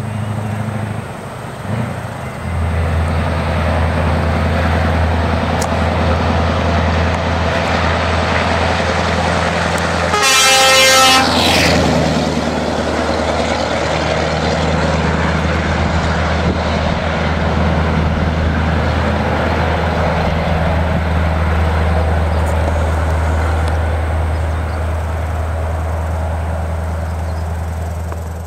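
Scania R500 timber truck's V8 diesel engine running with a deep, steady note as the truck drives by loaded with logs. About ten seconds in, the truck's horn gives one toot of about a second and a half.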